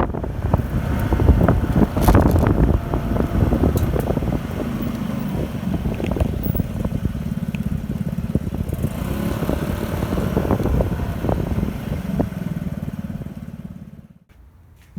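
Yamaha Majesty 125 scooter's single-cylinder four-stroke engine running under way, with a steady low engine note; the sound fades out near the end.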